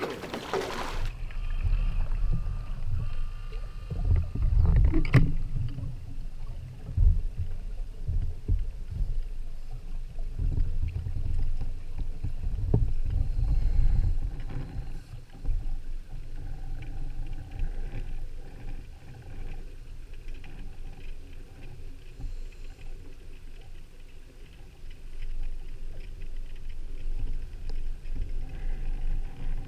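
Low, uneven rumble of sea water, louder in the first half, with one sharp click about five seconds in.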